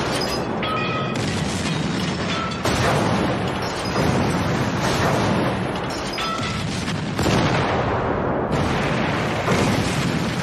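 Artillery barrage sound effect: overlapping booms of heavy guns firing and shells exploding, a fresh blast every second or two over a continuous rumble, with no let-up.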